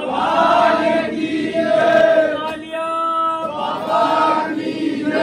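Crowd of devotees chanting a devotional 'jai' slogan together, in several long drawn-out calls with short breaks between.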